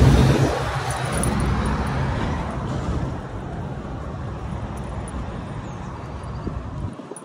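Passing road traffic: a vehicle goes by close, loudest right at the start, followed by a steady low engine rumble and tyre noise that fades away near the end.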